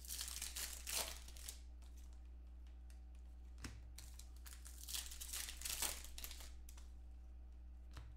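Foil football-card pack wrappers being crinkled and torn open by hand, in two bursts about four seconds apart, with a couple of small clicks of handling between them.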